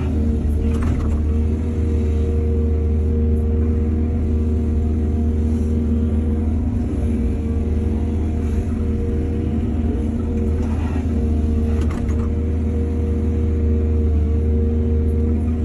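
Excavator's diesel engine running steadily with a steady whine over its deep drone, with a few brief knocks about a second in and twice near eleven to twelve seconds.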